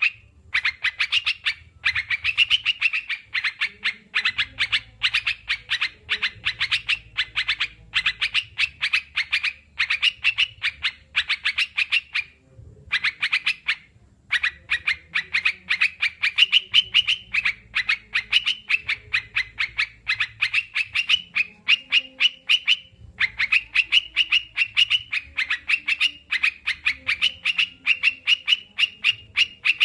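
Yellow-vented bulbul (crucukan) calling: fast runs of short, sharp chattering notes, several a second, in phrases a few seconds long broken by brief pauses.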